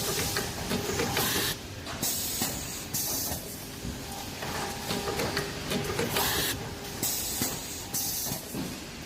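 Pipe-processing machine running with a steady mechanical clatter, broken several times by short bursts of hissing air.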